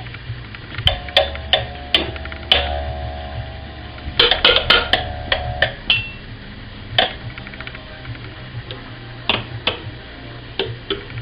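Kitchen objects tapped and clicked against each other in an irregular series of sharp knocks, with a sustained ringing tone held from about a second in until about six seconds in.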